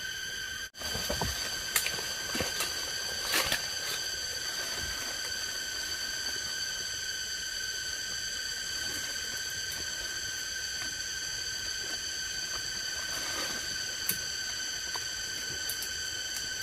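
Steady, high insect drone, even and unbroken, with a few faint clicks and snaps; the sound cuts out for an instant under a second in.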